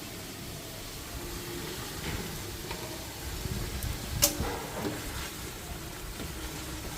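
Spice paste frying in hot oil in a pan, sizzling steadily while it is stirred, with a sharp clink of the utensil against the pan about four seconds in. A low rumble joins about three seconds in.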